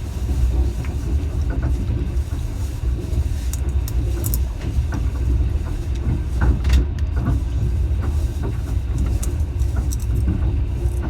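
Moving passenger train: a steady low rumble with scattered small clicks and rattles.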